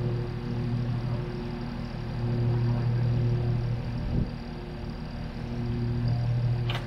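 A TYM T264 compact tractor's diesel engine running steadily, its level swelling and easing several times, with a single knock about four seconds in.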